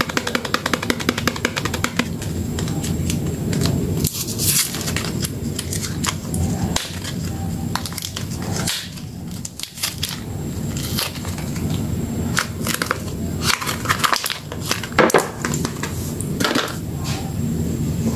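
A soap bar's paper-card wrapper being handled and torn open by hand: a run of irregular crackles and sharp paper snaps.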